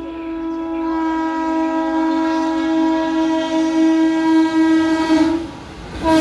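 Indian electric locomotive's twin-tone horn sounding one long, steady blast that grows louder as the train approaches and cuts off about five seconds in, over the rising noise of the passing train. A fresh blast starts at the very end, dropping in pitch as the locomotive passes.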